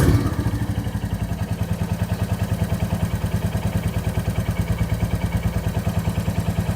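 Motorcycle engine blipped once at the very start, then settling back to a steady, evenly pulsing idle. The intermittent rattle being chased, later traced to the vibrating exhaust heat shield, does not show up here.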